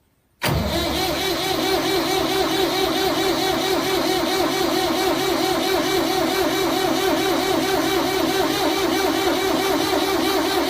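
Old electric fan switching on abruptly about half a second in, then running with a loud mechanical drone and a fast, even pulse.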